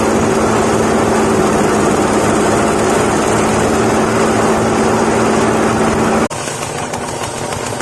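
Husk and straw grinding mill running steadily at constant speed, a loud machine drone with a steady hum. About six seconds in the sound cuts off abruptly and gives way to a quieter running sound with a rapid, even knocking.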